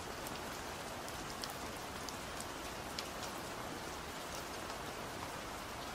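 Steady rain, an even hiss with a few faint drop ticks.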